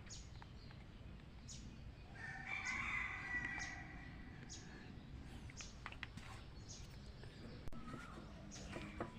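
A rooster crowing once, starting about two seconds in, over repeated short, high chirps that fall in pitch.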